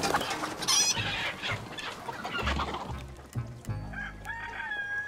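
A flock of chickens clucking and squawking as they run about, with a sharp high squawk about a second in; the calls thin out after about three seconds.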